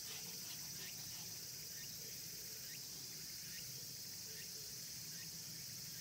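Steady high-pitched insect chorus, like crickets, with faint short chirps now and then.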